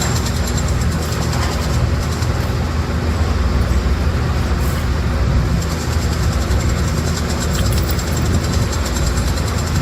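Heavy diesel construction machinery running steadily, a continuous low rumble with no separate strikes.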